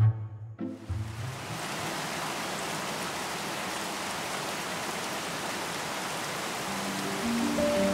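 Steady rain falling, an even hiss with no break. Soft music notes sound at the very start and come back near the end.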